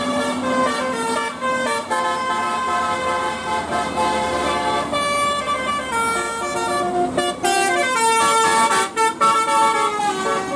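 Bus 'telolet' horn, a set of multi-tone air horns, playing a tune: short held notes that step up and down in pitch, one after another.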